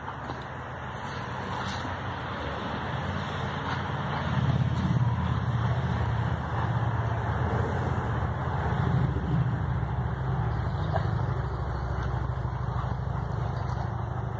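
A low, steady engine rumble that grows louder about four seconds in and then holds.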